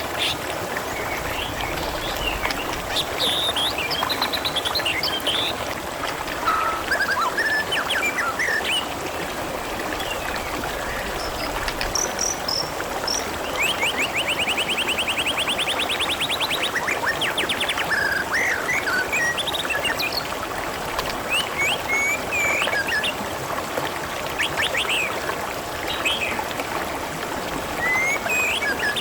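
Water trickling and babbling steadily, with small birds chirping over it and one fast trill about halfway through.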